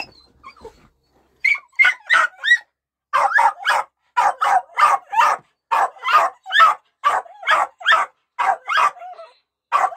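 Small white-and-tan dog barking excitedly in a rapid string of sharp barks, about two a second, starting about a second and a half in. She is worked up at the sight of a shotgun, eager to go hunting.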